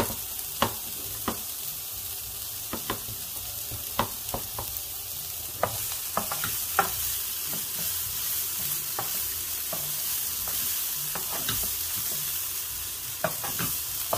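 Diced carrot, onion and celery sizzling in olive oil in a nonstick frying pan while being stirred with a wooden spoon, with scattered knocks of the spoon against the cookware. The sizzle grows louder about six seconds in.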